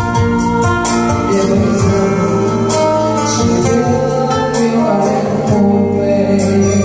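A woman singing a Vietnamese song live into a microphone through a PA, accompanied by acoustic guitar.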